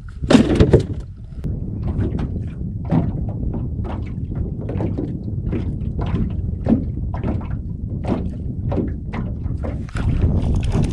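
Small waves slapping irregularly against the hull of a flat-bottomed metal boat, with a low wind rumble on the microphone. A lid thuds shut about half a second in.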